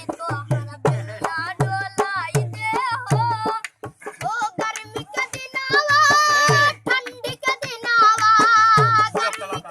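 Music: a song with a steady drum beat and a singing voice, the singer holding long wavering notes in the second half. The music drops out briefly about four seconds in.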